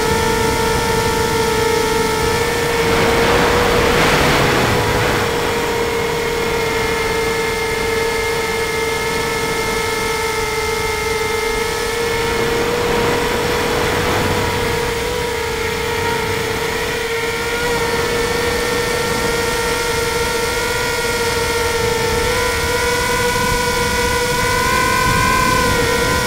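A tricopter's electric motors and propellers humming steadily, heard from the onboard camera, with the pitch wavering slightly near the end. Two gusts of wind buffet the microphone, one about three seconds in and another about twelve seconds in.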